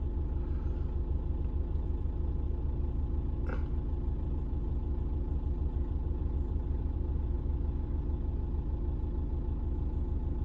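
Nissan Terrano's engine idling steadily, heard from inside the cabin, with a single short click about three and a half seconds in.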